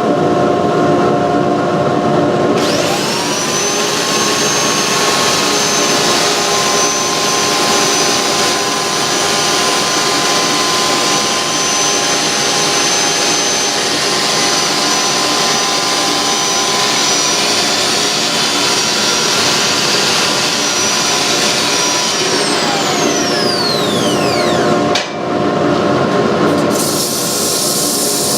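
Wood lathe turning a spindle while sandpaper rubs against it, with dust-collection suction running steadily. A higher motor whine comes in about two and a half seconds in, then winds down with a falling pitch a little over twenty seconds in.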